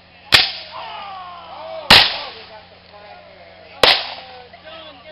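Three black-powder musket shots fired with blanks, about two seconds apart, each a sharp crack trailing off briefly.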